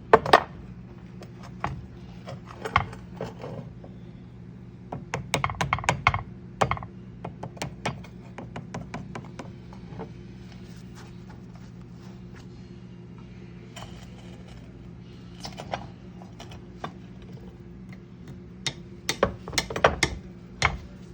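Sharp clicks, clinks and scrapes of hard objects being handled, likely the freshly cast copper pieces, in quick clusters about five to seven seconds in and again near the end, over a steady low hum.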